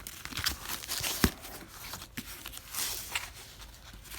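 Packaging of a shipping box being handled and unpacked by hand: scattered rustling and crinkling of packing material, with one sharp knock about a second in.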